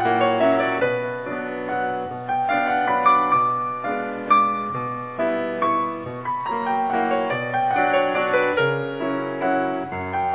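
Background music played on a piano-like keyboard: a run of short notes with no voice over it.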